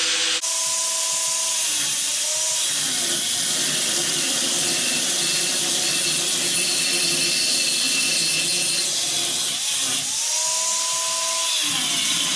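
Power tool cutting through a steel Jeep CJ7 frame rail: a loud, steady grinding hiss of the blade in the metal. The motor's pitch dips and recovers near the start and again near the end as the cut loads it.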